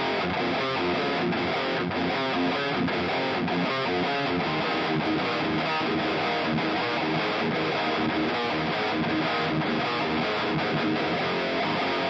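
Electric guitar played through a Mooer GE150 multi-effects processor on its 'Tri Rect Lead' factory preset: a high-gain Rectifier-style lead tone with hall reverb. The guitar plays a steady run of notes.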